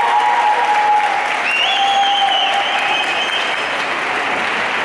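Audience applauding steadily, with a few held high tones sounding over the clapping.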